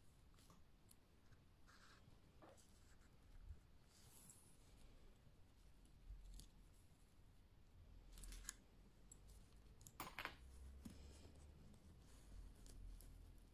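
Near silence with faint rustling and a few light clicks from a plastic zipper and a tape measure being handled, the sharpest click about ten seconds in.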